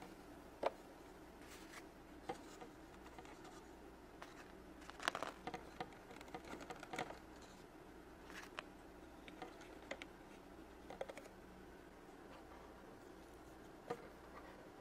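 Small plastic toy figures being set into a plastic toy fridge: scattered light clicks and taps, bunched together about five to seven seconds in, over faint room hiss.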